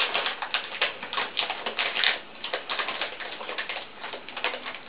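Packaging crinkling and rustling in rapid, irregular crackles, as a packet or wrapping is handled and opened.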